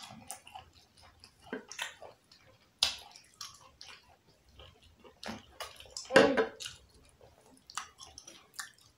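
Drinking and mouth sounds: scattered sips, swallows and small wet clicks, with one fuller gulp-like sound about six seconds in.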